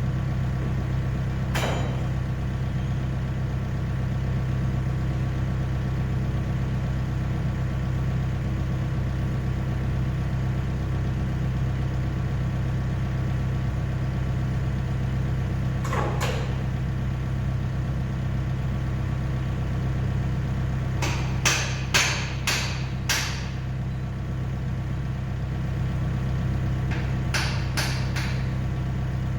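Komatsu PC50 excavator's diesel engine idling steadily, with sharp metal knocks over it: one near the start, one in the middle, a quick run of about five about two-thirds through, and three near the end.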